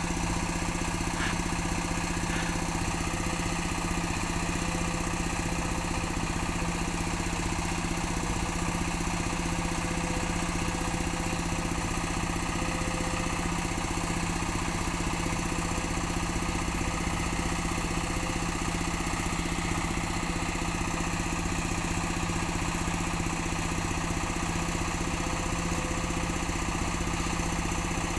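Sumitomo hydraulic excavator's diesel engine running at a steady, unchanging speed.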